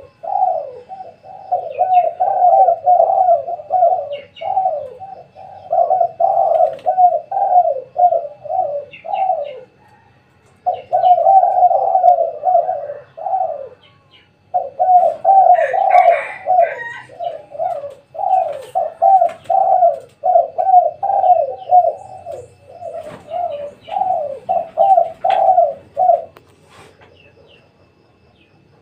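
Spotted doves (tekukur) cooing in a busy, overlapping chorus of repeated coos, broken by two short pauses and stopping near the end. Faint chirps from small birds are audible underneath.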